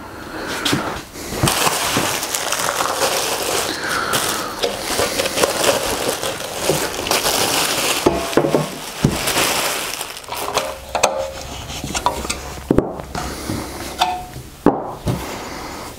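Handling noise from a table saw's sheet-steel side panel and plastic dust outlet being unpacked and fitted together: continuous rustling with many clicks and knocks, and a few brief metallic rings in the last few seconds.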